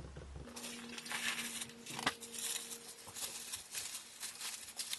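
Plastic packaging rustling and crinkling as a camera tripod is unwrapped from its bag, in irregular handling noises. A faint steady hum runs underneath from about half a second in.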